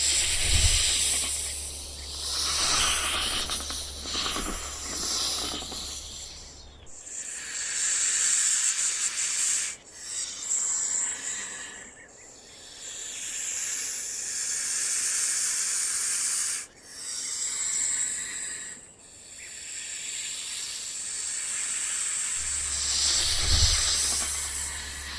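A snake hissing: a series of long, high-pitched hisses of a few seconds each, one after another with brief pauses between.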